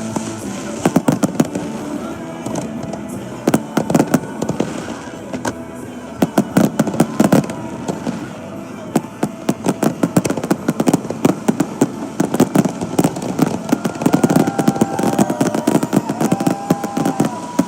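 Fireworks exploding in rapid, irregular volleys of sharp bangs and crackle, the explosions coming in dense clusters every few seconds.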